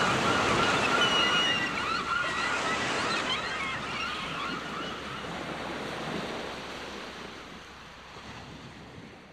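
Sea surf: waves washing steadily, fading out gradually. A few high wavering tones sound over it in the first three seconds or so.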